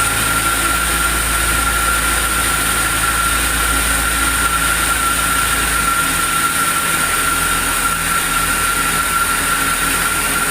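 Sawmill saw running steadily, a loud even noise with a constant high whine; the low hum under it drops about six seconds in.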